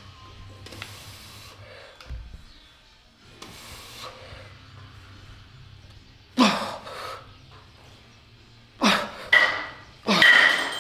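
A man breathing hard through a heavy set of cable rows: soft breaths at first, then loud forceful exhales, some with a grunt, coming close together over the second half.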